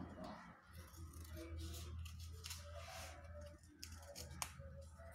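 Scattered short rustles and clicks of paper and tape being handled, over a low steady hum.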